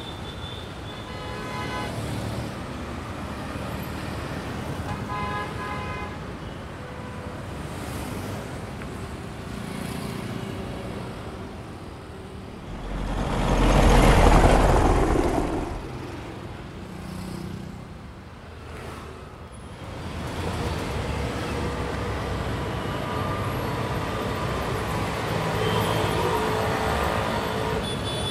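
Street traffic with cars and motorbikes running and a few horn toots early on, and one vehicle passing close and loud about halfway through.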